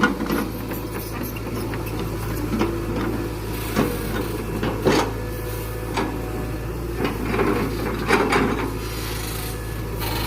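Excavator engine running steadily under a load of rubber-wood logs, which knock and scrape against each other in irregular clacks as the machine lifts them.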